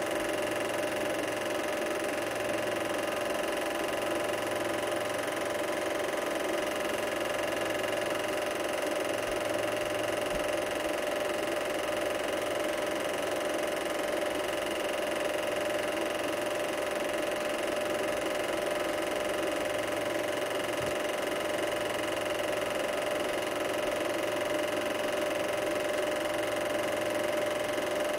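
Super 8 film projector running: a steady mechanical whir with a constant high hum, unchanging throughout.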